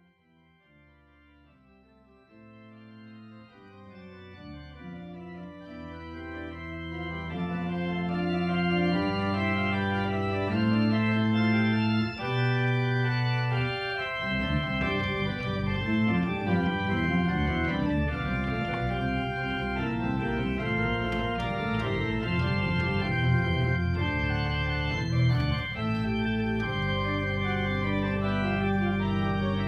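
Pipe organ music fading in from silence over the first several seconds. A busy passage of quick notes in the bass follows and gives way to a held full chord near the end.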